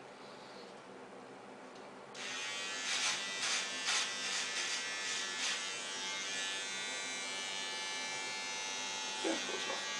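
Remington electric beard trimmer switched on about two seconds in and running with a steady buzz, with several brief louder rasps over the next few seconds as it cuts through beard hair.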